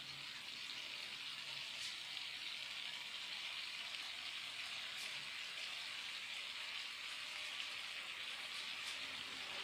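A fried egg and soy-sauce mixture sizzling in a non-stick frying pan, a steady hiss with a couple of faint pops, as the sweet and salty soy sauce cooks down on the heat.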